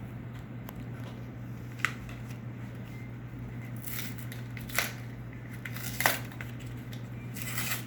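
Trading cards and packaging being handled on a table: a few sharp clicks and short rustles, over a steady low hum.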